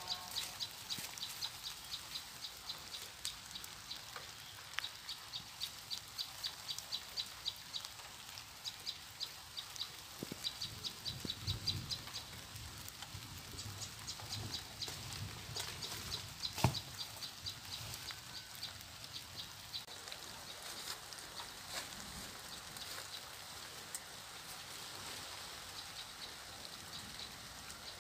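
Rural outdoor ambience with a high animal call repeated about four times a second, fading out about two-thirds of the way through, and a single sharp click a little past halfway.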